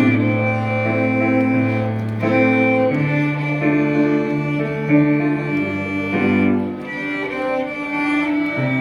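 Live community ensemble playing a song on bowed strings, violin and cello holding sustained notes over a slowly moving bass line.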